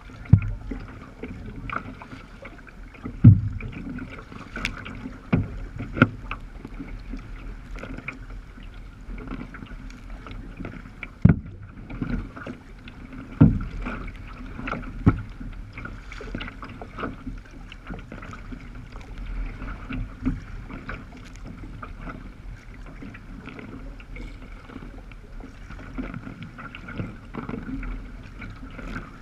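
Sea kayak hull moving through choppy water, with a steady wash of water along the sides. Irregular sharp slaps come as waves and spray hit the bow, the loudest a few seconds in and again around the middle.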